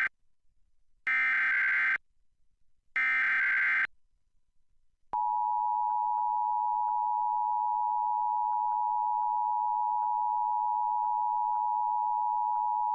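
Emergency Alert System test: the last two bursts of the SAME data header, harsh electronic screeches about a second long each, separated by a second of silence. About five seconds in, the steady two-tone EAS attention signal (853 and 960 Hz) starts and holds for about eight seconds before cutting off.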